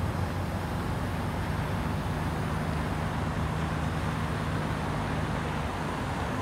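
Semi tractor's diesel engine running steadily as the tractor pulls away from its unhooked flatbed trailer.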